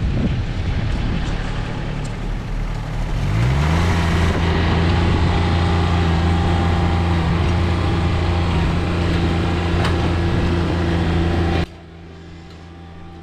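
John Deere 2320 compact tractor's diesel engine running, with wind buffeting the microphone; about three seconds in the engine revs up and holds steady at the higher speed. Near the end the sound drops off abruptly to a quieter low hum.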